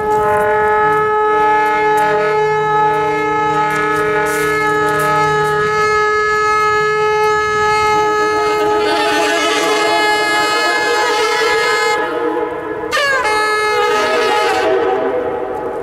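Saxophone holding long sustained notes in an underground tunnel. About halfway through, the tone turns rough and split, with several pitches beating against each other. A brief break and slide in pitch comes near the end before the held note returns.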